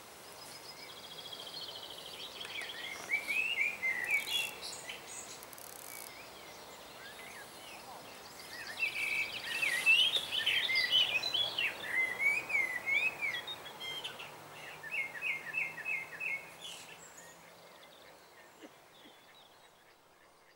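Songbirds singing: phrases of quick rising and falling whistles and trills, loudest about three seconds in and again from about nine to thirteen seconds, then fading away near the end.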